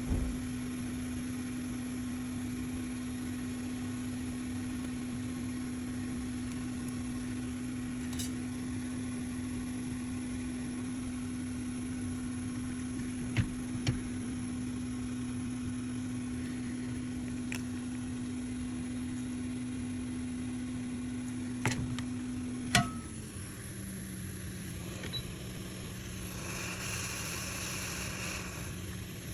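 Steady hum of a hot air rework station's blower during chip reballing, with a few sharp clicks. About 23 s in, right after a click, the hum settles to a slightly lower pitch, and a short hiss comes near the end.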